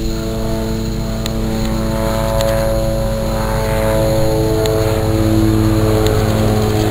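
Firefighting aircraft flying low nearby, a steady engine drone with a fast low beat from the blades, its pitch slowly shifting and its level growing toward the end.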